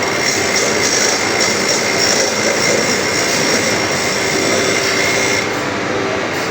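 Electric grinder running steadily while sharpening the teeth of a crosscut saw, a continuous grinding whine with a high note that fades near the end. The new grinding stone is still oversized and wobbles.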